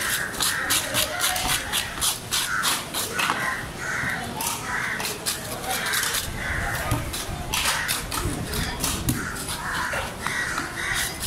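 Knife scraping scales off a golden pomfret in quick repeated strokes, making a rapid series of rasping clicks. Crows cawing in short calls are heard throughout.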